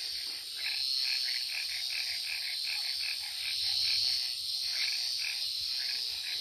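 Frogs calling in a chorus, a quick run of short repeated calls about four a second, over a steady high trill of crickets.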